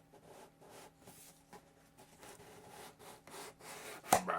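A cardboard subscription box and its contents being handled: a series of short rubbing and scraping noises, then a sharp knock near the end.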